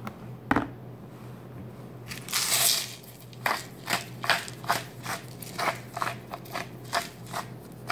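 Hand-turned salt grinder crunching Himalayan pink salt crystals: one longer grind a little after two seconds in, then a quick run of short crunching strokes, about three a second, from about three and a half seconds in.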